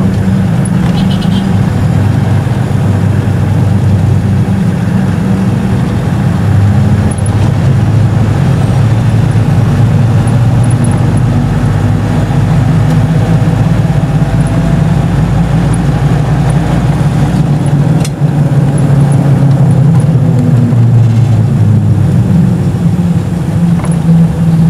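Car engine and road noise heard from inside the cabin while driving, loud and steady, with a single sharp click about eighteen seconds in.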